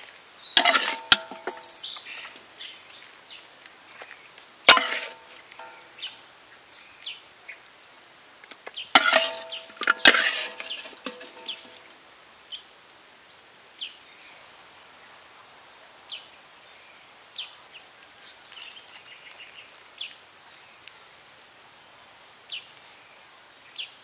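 Outdoor ambience with scattered short bird chirps, broken in the first half by a few sharp knocks and crackles, some with a brief ring, from the food being handled on its banana leaf.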